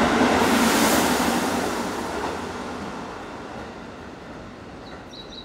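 Keisei 3700-series electric train running out of the station, its rumble and wheel noise fading steadily as the last cars clear, with a brief hiss about a second in. A few faint high chirps come near the end.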